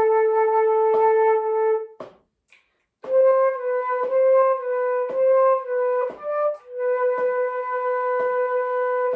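Transverse flute playing a slow melody: a short note sliding into a long held note of about two seconds, a breath pause, then a phrase of shorter notes. Faint taps mark the beat about once a second.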